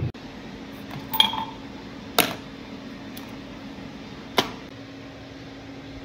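Small hard objects being handled: a glassy clink with a brief ring about a second in, then two sharp clicks about two seconds apart, over a steady low hum.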